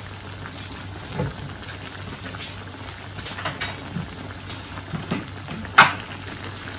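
Pumpkin cubes in a shallow broth in a wok, simmering with a steady bubbling and scattered small pops, and one sharp click near the end.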